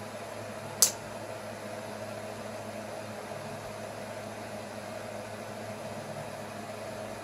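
Steady low room hum and hiss, with one sharp click a little under a second in.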